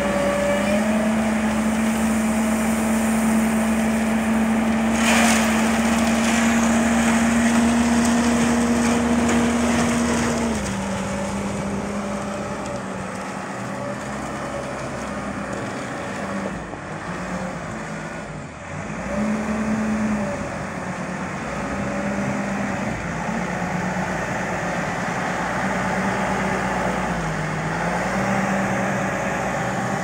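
Diesel engine of a self-loading concrete mixer running steadily, held at higher revs for about the first ten seconds while the loading bucket works the aggregate, then dropping to a lower speed, with a brief rise again around twenty seconds in. There is one short sharp noise about five seconds in.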